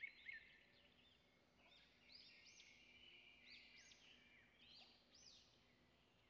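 Near silence, with faint, high bird chirps repeating.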